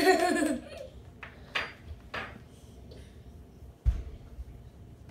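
A child's short whining vocal sound, followed by a couple of soft rustles and a dull thump about four seconds in.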